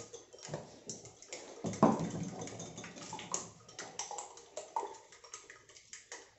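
Fork beating an egg in a small glass bowl: quick, irregular clinks and taps, with a louder thump about two seconds in.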